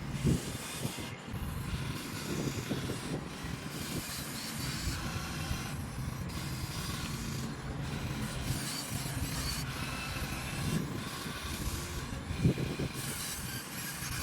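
Small electric motors of an RC excavator whining in changing stretches over a steady low hum, with a couple of knocks, about the start and a second or two before the end.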